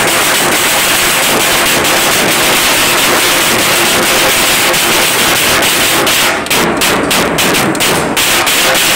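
A street band of stick-beaten frame drums with a metal cymbal playing a fast, driving beat. It is loud enough to overload the recording into a harsh, dense wash, with rapid sharp strikes standing out in the second half.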